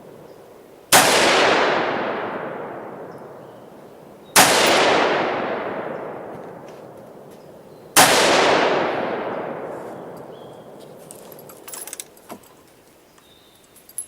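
Three shots from a home-built AR-15 rifle with a 5.56 barrel firing Federal .223 ammunition, about three and a half seconds apart, each followed by a long fading echo. The last shot empties the magazine and locks the bolt open. A few faint clicks follow near the end.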